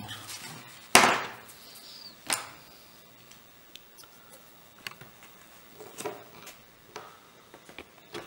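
Workbench handling sounds: a sharp knock about a second in and a second knock soon after, then light taps and clicks as the wing tip and a red servo template are handled and marked with a pointed tool.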